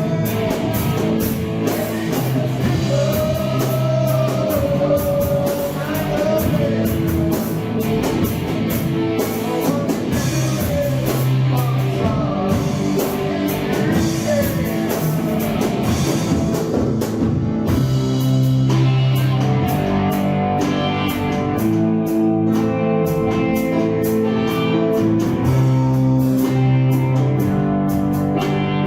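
Rock band rehearsing a song, with drum kit, electric guitar and bass playing together steadily.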